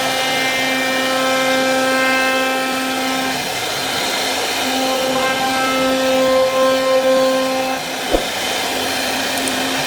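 CNC router spindle running steadily while carving wood, a high motor whine with its pitch and strength wavering as the cut load changes. A single sharp click about eight seconds in.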